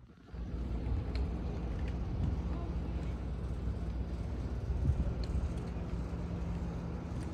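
Outdoor marina ambience: a steady low rumble with a constant low hum and a few faint clicks, starting abruptly at the beginning.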